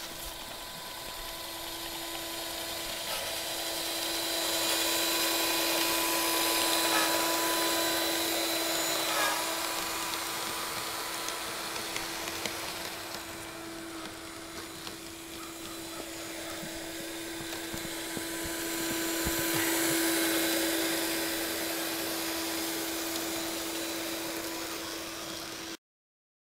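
Scratchbuilt G-scale rotary snowplow and its locomotives running through heavy wet snow: a small motor whines steadily, swelling louder twice. The sound cuts off suddenly near the end.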